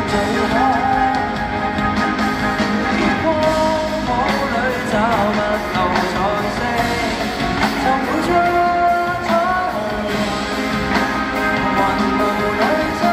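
Live pop song: a male singer's lead vocal, with held notes that waver in vibrato, over piano and band accompaniment.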